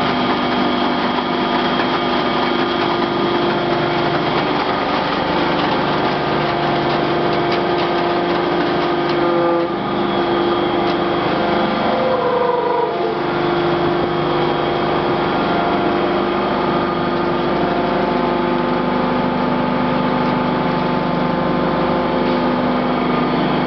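Becker scrap-metal lid baler running, its hydraulic drive giving a steady mechanical hum with several fixed tones. Between about ten and thirteen seconds in, the sound shifts, with some tones gliding upward, before it settles back to the same steady running.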